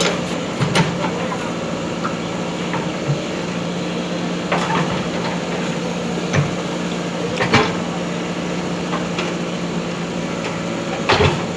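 Backhoe loader's diesel engine running steadily, with several sharp clanks at irregular moments.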